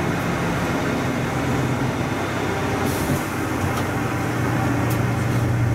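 Bus engine running steadily, heard from inside the moving bus, its low hum growing louder near the end. A brief hiss comes about three seconds in, with a few light clicks.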